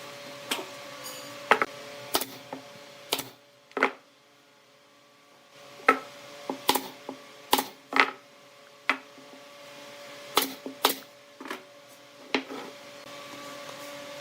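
Irregular sharp taps and knocks of woodworking, about a dozen, over a steady machine hum with a fixed pitch; the hum drops out for a couple of seconds about four seconds in, then returns.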